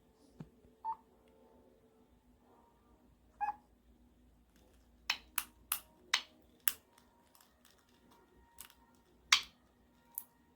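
White-bellied caique playing with a pen: sharp clicks, a quick run of five around the middle and two more near the end, the pen's click and the bird's imitation of it, with two short chirps in the first few seconds.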